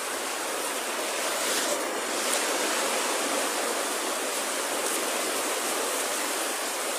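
Small waves breaking and washing up a sandy beach: a steady surf hiss.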